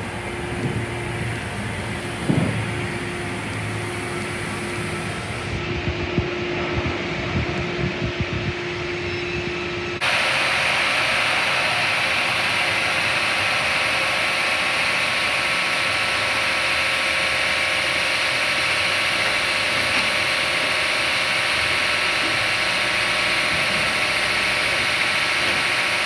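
Sawmill machinery running steadily inside the mill hall, an even, loud, hissing mechanical din. For roughly the first ten seconds there is quieter yard noise with a steady hum and a few knocks, then the sound changes abruptly to the louder machine din.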